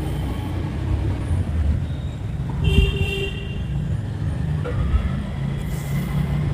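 Steady low rumble of outdoor background, with a short horn toot about three seconds in.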